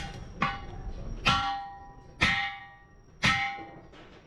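Four ringing metal strikes about a second apart, each ringing at the same pitch and dying away: hammer blows on an alloy car wheel rim being straightened.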